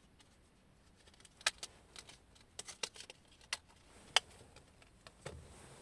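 A run of about a dozen short, sharp, irregular plastic clicks and ticks between about one and a half and four seconds in: a microSD card and its clear plastic holder being handled.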